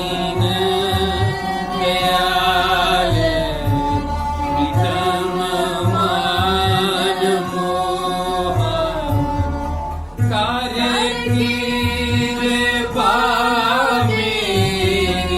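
Indian classical music in Raag Todi: a voice sings slow, gliding melodic lines over a steady drone, while low drum strokes keep an even pulse.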